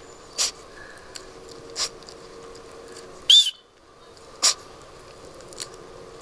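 Pitbull puppy sneezing, four short sharp sneezes over a few seconds, set off by the plants it has been eating. The loudest, about halfway through, has a high squeaky note.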